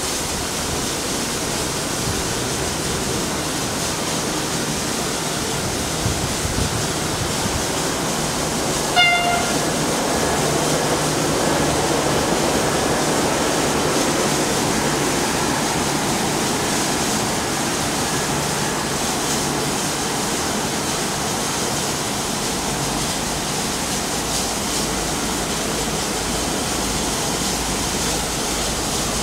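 Railway train noise: a steady rushing sound, with one short, pitched toot of a train whistle about nine seconds in and a low rumble building in the second half.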